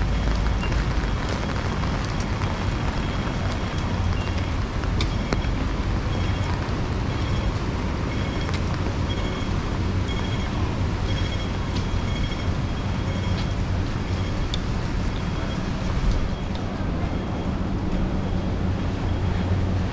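Typhoon-force wind and city traffic on a street: a steady rush of noise with a low rumble of wind buffeting the microphone. A string of short high beeps sounds through the middle.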